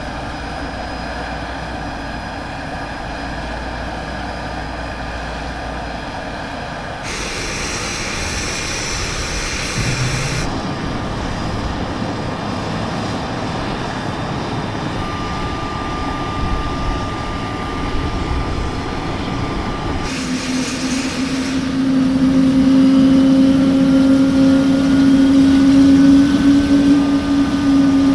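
Heavy machinery on an airfield, in several cuts. First a steady engine drone as the M142 HIMARS truck climbs the A400M's loading ramp, then two hissing bursts of a few seconds each. Over the last several seconds a louder steady hum with a faint rising whine comes from the Airbus A400M's engines running.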